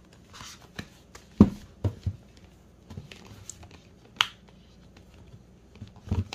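Hands handling a small holographic cash-envelope binder: faint rustling of the envelopes with scattered knocks and clicks, the loudest a low thump about a second and a half in, a sharp click just past four seconds, and a quick run of clicks near the end.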